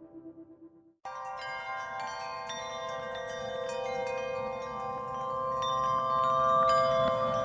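Background music. A soft ambient track fades out, and about a second in a new track starts abruptly with chime and bell-like strikes ringing over steady held notes.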